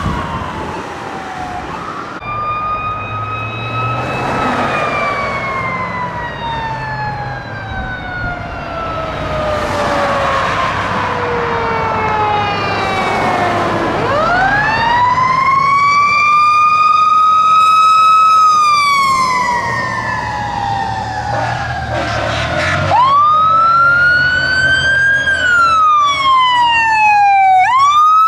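Fire engine siren, a mechanical-type wail that winds up in a curving rise and slowly coasts down in long falling howls, about three times, over the low rumble of the truck's diesel engine. Near the end a new siren starts rising.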